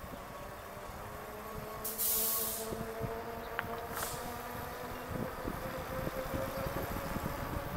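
Electric bike's motor whining at a steady pitch that climbs slowly as it speeds up, over a low rumble. A short hiss about two seconds in.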